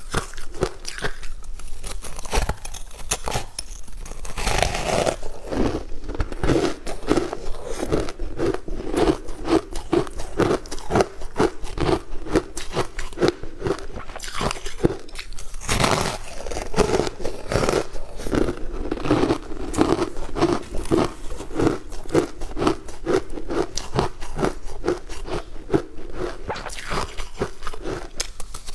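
Refrozen ice chunks dusted with matcha powder being bitten and chewed close to a clip-on microphone: a steady run of crisp crunches, several a second.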